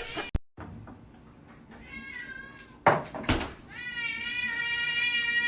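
A domestic cat meowing, a short bending call about two seconds in, followed by a loud noisy burst. Near the end a steady held musical tone begins.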